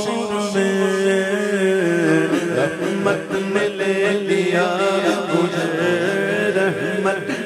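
A man's voice singing an Urdu devotional poem in praise of Ali, in naat style, with long held notes and ornamented glides over a steady low drone.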